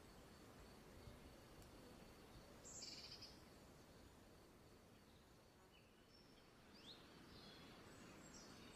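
Near silence: faint outdoor night ambience with a short cluster of soft high chirps about three seconds in and a few fainter chirps near seven seconds.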